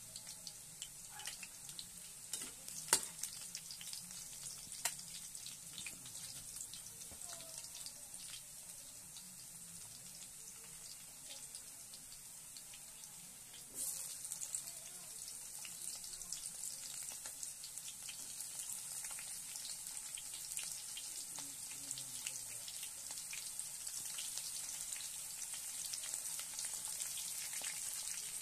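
Chopped garlic frying in hot oil in a pan: a steady sizzle with light crackles and a couple of sharp pops in the first few seconds. About 14 seconds in, sliced onion goes into the oil and the sizzle jumps louder, growing slowly from there.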